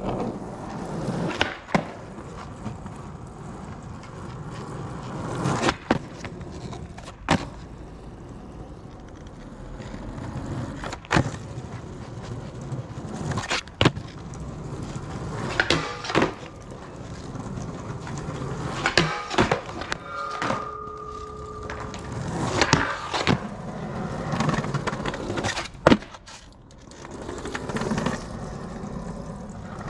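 Skateboard wheels rolling on pavement, broken by sharp wooden clacks of the board popping and slapping down on the ground, about nine times.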